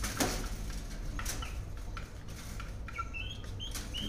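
Caged birds chirping in short high notes, several in quick succession near the end, with a few sharp clicks, the loudest just after the start.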